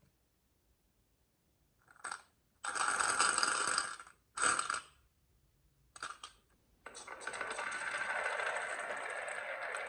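Marbles rolling and clattering along a toy marble run track in several short runs, then a continuous rattling rush of marbles from about seven seconds in.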